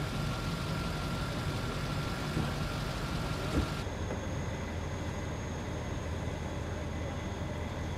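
Steady low drone of idling emergency-vehicle engines, with a single short knock about three and a half seconds in; the background changes abruptly a little before four seconds.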